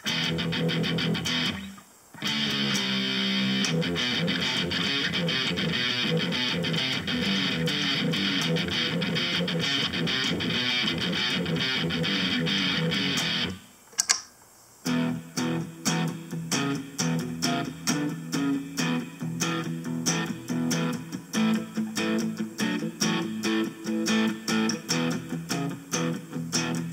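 Electric guitar played through Harley Benton DNAfx GiT multi-effects presets: sustained, strummed chords for about the first half, then after a short break a new sound of choppy, rhythmic picked notes.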